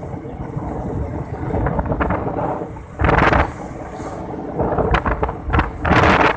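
Wind buffeting the microphone of a moving vehicle, with a low steady engine hum underneath. Two loud gusts hit the microphone, one about three seconds in and a longer one near the end.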